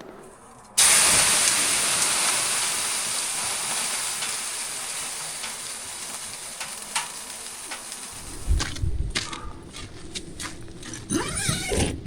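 Water thrown onto the hot stones of a sauna stove: a sudden loud hiss of steam about a second in that slowly dies away. Near the end come low knocks and rustling.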